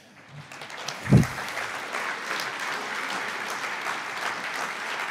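Audience applauding, building up over the first second and then holding steady. A single short low sound about a second in stands out as the loudest moment.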